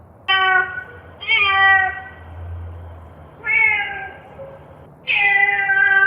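Four meows voiced by a person in reply to a call, each falling a little in pitch.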